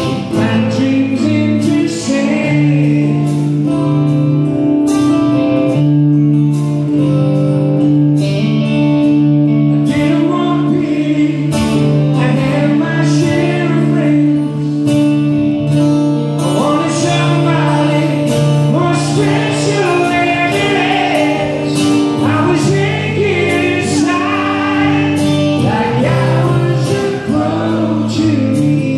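Rock band playing a power ballad live on electric guitar, with sustained chords under a lead singer's voice.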